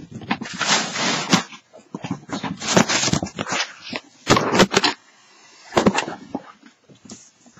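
Rustling and crinkling of a heap of uninflated balloons and a cardboard box being handled, in irregular bursts as hands dig through them.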